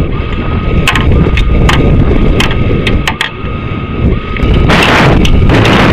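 Onboard-camera audio from a high-altitude suborbital rocket in flight: a loud, dense rumble with sharp rattling clicks and a thin high whine. The whine breaks off about three-quarters of the way through, as the rumble grows louder.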